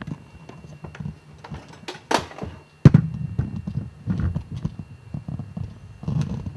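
Handling noise: irregular knocks, bumps and rustling, with one loud thump just under three seconds in and a faint steady high tone underneath.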